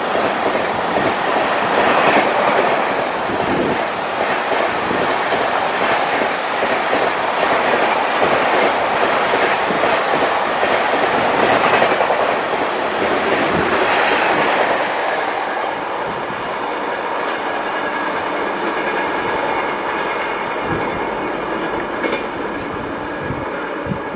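LHB passenger coaches of an express train running past at speed, wheels clattering over the rail joints. The noise eases somewhat after about fifteen seconds.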